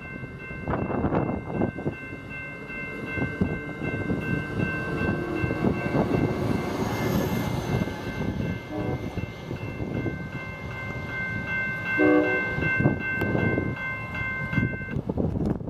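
Capitol Corridor passenger train of bilevel cars rolling past and pulling away, with steady wheel and rail rumble and clatter. A steady high-pitched whine runs alongside and cuts off near the end, and a brief horn blast sounds about twelve seconds in.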